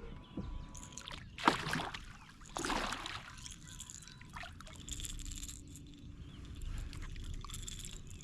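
Water sloshing against a kayak hull, with two louder splashing bursts: a sharp one about a second and a half in and another near three seconds.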